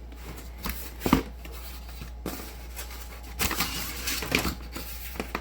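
Handling noise as a screwdriver set in its foam case is picked up and opened: scattered light clicks, a sharper click about a second in, and a stretch of rustling and clatter past the middle, over a steady low hum.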